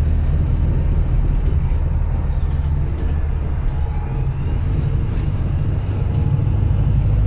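Inside a moving city bus: the steady low rumble of the engine and drivetrain, with road noise and a few faint rattles.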